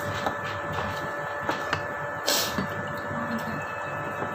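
Steady room hum with two constant tones, with a few light clicks of a spoon and dishes and one short hiss about two seconds in.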